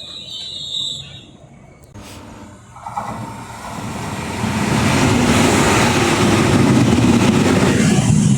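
Train wheel squeal fading out in the first second, then a train's noise building from about three seconds in to a loud, steady rush.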